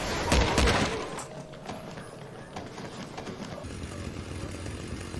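Dramatic sound effects from an anime soundtrack: a heavy impact about half a second in, followed by scattered clicks and a low steady rumble that grows near the end.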